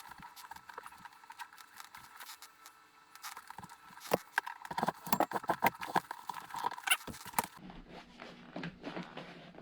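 Irregular clicks, taps and knocks of hands handling a CB radio and center-console parts during fitting. They are thickest between about five and seven and a half seconds in.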